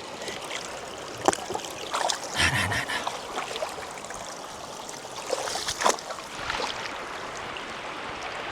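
River water running steadily over rocks, with a few sharp knocks, about a second in, around two and a half seconds in and near six seconds in.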